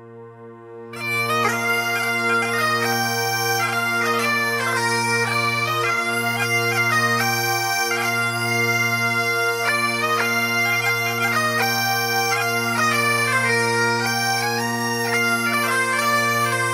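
Scottish bagpipes playing a lively melody over steady, unbroken drones, coming in about a second in.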